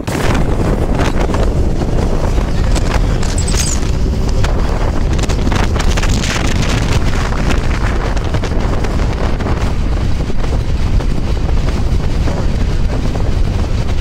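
Heavy wind buffeting the microphone over the steady low rumble of a moving bus.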